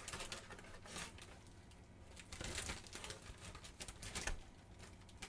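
Plastic postal satchel and a snack packet crinkling and rustling on and off as a hand rummages inside the bag and pulls the packet out.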